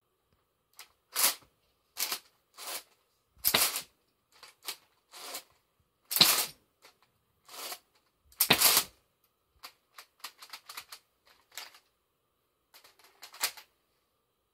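Plastic clacks and clicks of a brick-built LEGO semi-automatic rifle's retractor mechanism being worked by hand: irregular sharp clacks, the loudest four spread over the first two-thirds, then a run of lighter, quicker clicks.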